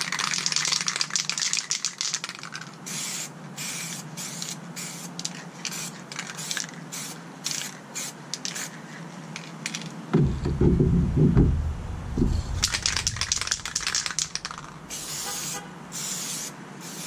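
Montana Hardcore aerosol spray paint cans with standard caps spraying: one longer hiss at first, then a run of short hisses, with more spraying in the second half. A low rumble comes in about ten seconds in and is the loudest sound for a second or two.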